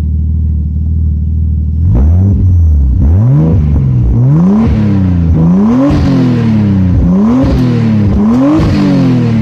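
Nissan RB25DET turbocharged straight-six idling, then blipped about six times in a row, each rev climbing and falling back to idle. It runs through an exhaust with its silencer removed. The revs are clean and smooth, the running fault cured after a new power transistor, AAC valve, air flow meter and spark plugs.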